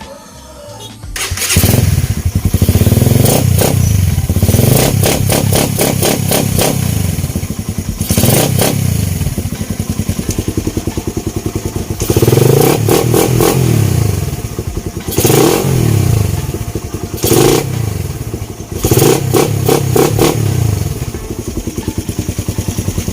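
Suzuki Raider 150's single-cylinder four-stroke engine, running on a 28 mm flat-slide carburettor, comes in about a second in and is revved in repeated throttle blips, its pitch rising and falling each time. This is a test of the carb's tune, which is judged still good.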